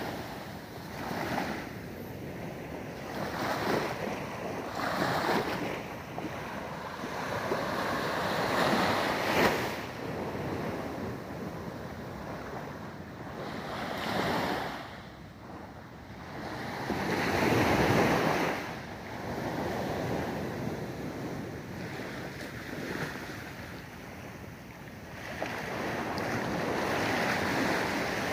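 Small waves washing up onto a sandy beach, swelling and fading every few seconds, with wind buffeting the microphone.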